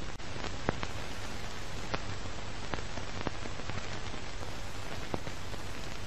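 Steady rain, an even hiss with scattered sharp drop ticks.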